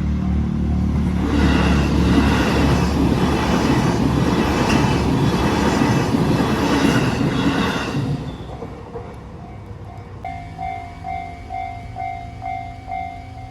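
An E233-series electric train on the JR Nambu Line passes over a level crossing with a loud rush of wheels on rail, which dies away about eight seconds in. After that the level crossing's electronic warning bell rings in a steady pulse, about two strokes a second.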